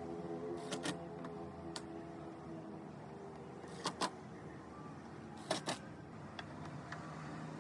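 Three pairs of sharp clicks or knocks, about a second in, four seconds in and five and a half seconds in, over a steady low hum.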